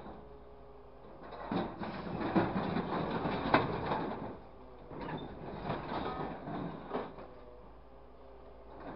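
Hydraulic grapple of a grapple truck loading scrap metal and timber into the truck bed: scrap clanking and clattering in two spells of knocks, with a faint steady hum beneath.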